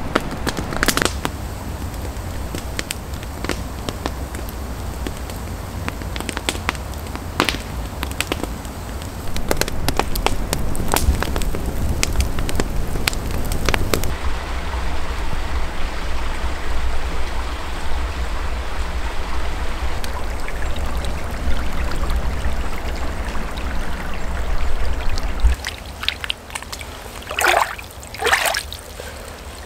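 Scattered sharp clicks and snaps, then a wood campfire burning with a steady hiss, then water splashing twice near the end as a cup is dipped into a shallow stream.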